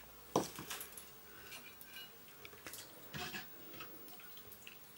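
A few scattered clinks and knocks of kitchen utensils and pots, the sharpest about half a second in and another few about three seconds in.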